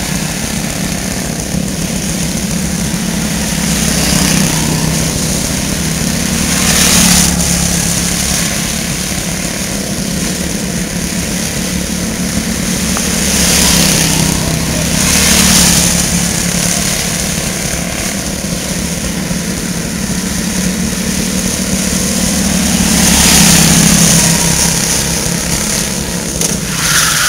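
Quarter midget race car's small engine running at speed around a paved oval, swelling louder several times.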